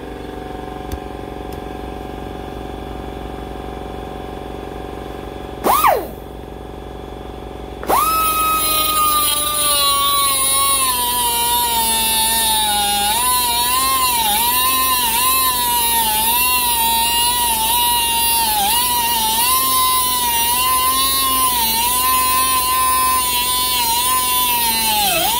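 Central Pneumatic composite air die grinder, with a small abrasive disc, given a short blip about six seconds in. Then it runs at full speed from about eight seconds in with a high whine. The pitch dips and wavers as the disc grinds into steel square tubing under load.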